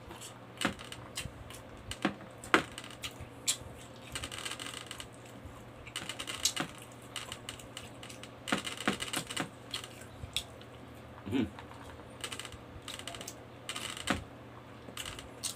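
Close-up eating sounds: a person chewing rice and pork and smacking the lips, making irregular short wet clicks with a few longer chewing stretches. A low steady hum runs underneath.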